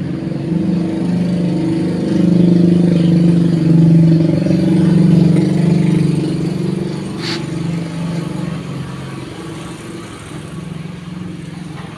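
An engine running steadily, growing louder a couple of seconds in and fading after about six seconds, with one short sharp click partway through.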